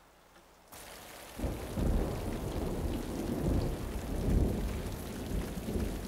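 Heavy rain falling, starting about a second in, with a low rolling rumble of thunder joining it shortly after.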